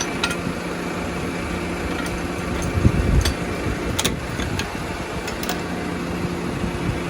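Tractor engine running steadily at low revs, with a louder low rumble about three seconds in.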